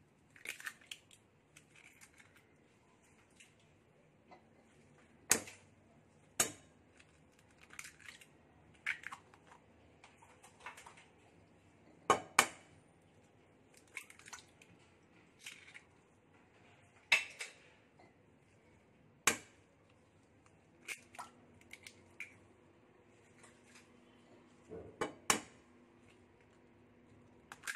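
Five eggs cracked one after another into a glass bowl: sharp shell taps every few seconds, with smaller clicks of shell between.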